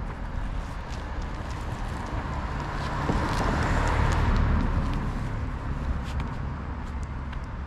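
Low rumble of a car engine running, swelling to its loudest about three to five seconds in, with light ticks of footsteps on concrete.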